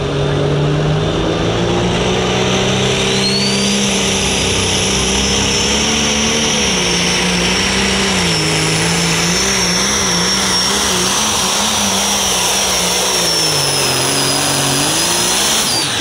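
Limited Pro Stock pulling tractor's turbocharged diesel engine running hard under load, with a high turbo whistle coming in a few seconds in and holding. The engine note wavers and sags through the second half.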